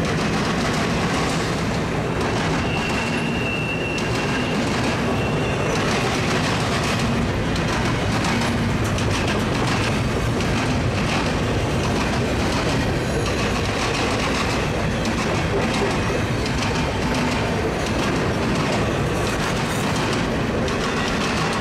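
Intermodal freight train cars rolling past over a railroad diamond crossing: a steady rumble of wheels on rail with rapid clicks and clacks from the joints. A brief high wheel squeal comes in a few seconds in.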